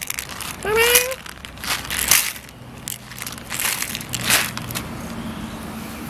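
Dry cat kibble rattling in irregular bursts as it is shaken out of a plastic bottle into a tin bowl. A cat gives one short rising meow about a second in.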